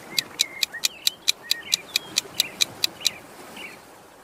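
Countdown timer sound effect ticking rapidly, about five sharp ticks a second, stopping about three seconds in, with small birds chirping faintly behind it.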